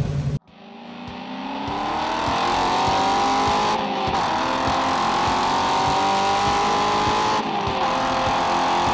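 Race car engine running hard at high revs, swelling in level and climbing slightly in pitch over the first few seconds, then holding a steady note, with two brief breaks where the sound changes.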